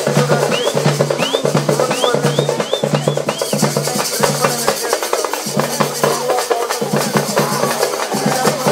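Fast, loud drum-led dance music: rapid drum strokes over a low bass note repeating in pulses, with a wavering melody line above. A run of about seven short rising whistles sounds in the first few seconds.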